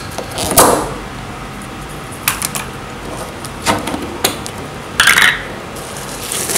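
A glass jar being opened after its vacuum is released: a loud knock a little over half a second in, then scattered clicks and taps of the lid and glass being handled, with a brief rush of noise about five seconds in.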